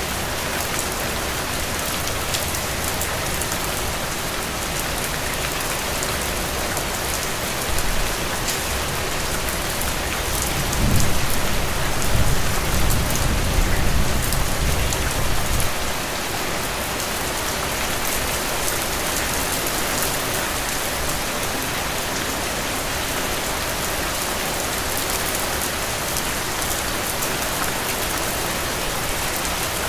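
Heavy, steady rain falling on soil and puddles: a dense, even hiss of drops. About eleven seconds in, a low rumble swells under the rain and dies away about five seconds later.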